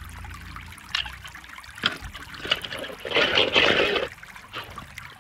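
Small die-cast toy cars clicking against hard plastic a few times, then a loud burst of wet clattering and splashing about three seconds in, with water trickling.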